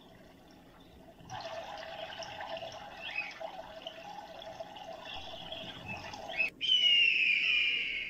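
A busy wash of water and flock sound from gulls swimming on the water, starting about a second in. After an abrupt cut comes a loud, high scream that falls in pitch and lasts over a second: the call of a bird of prey.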